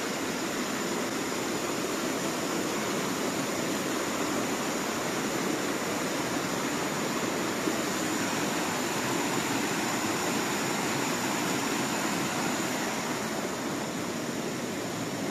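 Steady rush of running water from a man-made stream flowing over rocks.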